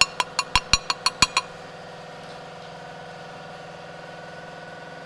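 Rapid ringing metal knocks, about six a second, as slag is knocked off a freshly plasma-cut steel piece; they stop about a second and a half in. A steady machine hum carries on under and after them.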